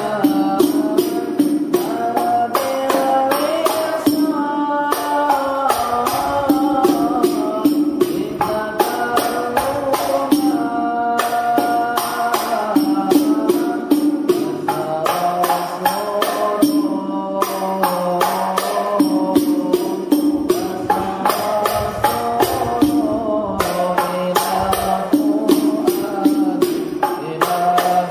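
Background music: a fast, steady beat of frame-drum and jingle percussion under a melody.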